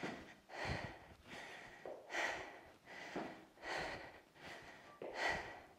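A woman breathing hard while exercising: heavy, forceful breaths, the strongest about every one and a half seconds with quieter breaths between.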